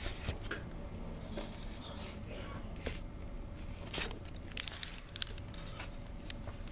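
Scattered short clicks and rustling handling noises over a faint steady hum.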